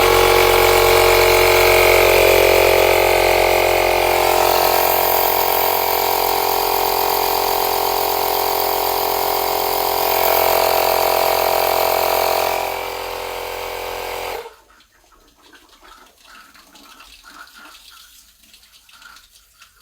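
Small electric air pump running steadily as it re-inflates a deflated boiler expansion vessel, easing off slightly near the end before stopping abruptly about fourteen seconds in.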